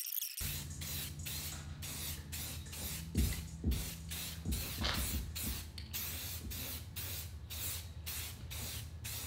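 Aerosol spray can hissing in many short bursts as it is swept over cabinet doors, over a steady low hum.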